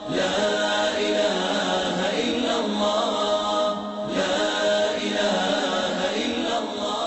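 Unaccompanied devotional chanting by voices, carried on a continuous melody with a short break about four seconds in.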